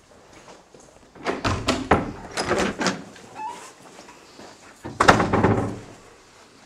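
Doors in an empty building banging and rattling: a run of knocks, then one loud bang with some ringing about five seconds in.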